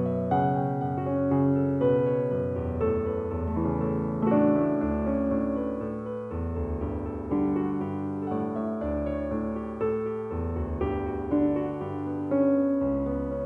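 Background piano music: held notes and chords changing about every second or two.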